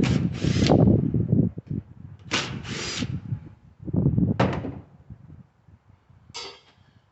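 Cordless drill/driver running in several short bursts as it backs screws out of the stove's sheet-metal cord access panel, with clatter of the metal between bursts.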